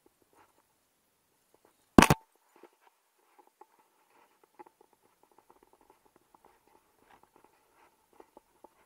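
A close, sharp double knock about two seconds in, then scattered faint clicks and scrapes as a climber moves on the rock.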